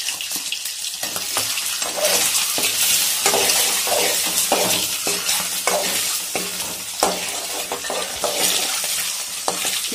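Peeled boiled eggs coated with turmeric sizzling steadily in hot oil in a metal kadai. A steel spoon scrapes and knocks against the pan again and again as the eggs are turned.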